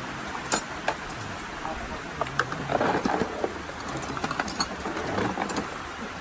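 Small electrical parts being rummaged through and handled: scattered light clicks and knocks, with one sharper click about half a second in.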